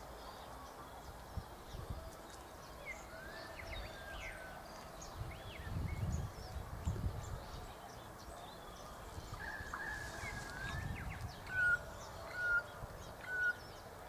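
Wild birds chirping and calling, with many short, quick notes, some sliding in pitch. Near the end come three short whistled notes about a second apart, the loudest sounds; a few dull low rumbles come midway.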